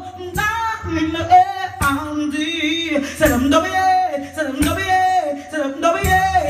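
A woman singing live into a microphone with a band: long, bending sung notes over a low bass line, with a sharp percussive hit about every second and a half.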